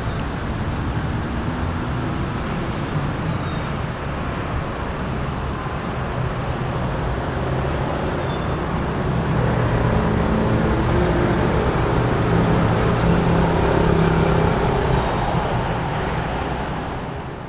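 Steady road traffic noise. A vehicle engine grows louder about halfway through and eases off near the end.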